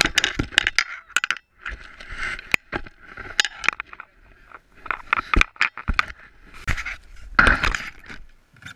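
Irregular scraping, rubbing and knocking close to the microphone of an action camera as it is handled, a knitted glove rubbing and bumping against it, with many sharp clicks.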